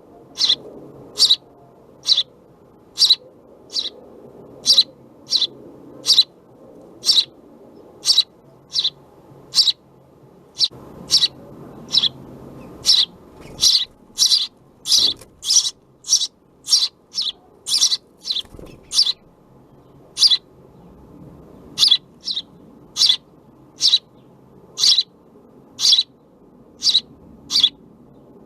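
House sparrows giving short, sharp chirps, about one or two a second, quickening into a faster run in the middle before slowing again.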